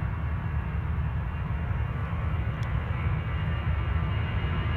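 Distant CFM56 jet engines of an Airbus A320 running at takeoff thrust as the airliner accelerates down the runway, a steady jet noise whose whine grows slightly toward the end. Heavy low wind rumble on the phone microphone runs under it.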